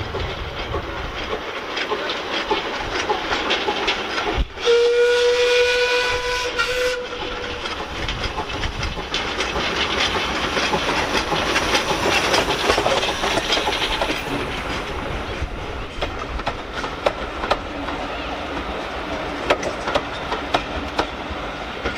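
Andrew Barclay 0-4-0 saddle-tank steam locomotive approaching and passing under steam with its coaches, exhaust chuffing continuously. About four and a half seconds in it sounds its whistle once for about two seconds, one steady note. Near the end the coaches' wheels click over the rail joints as they roll by.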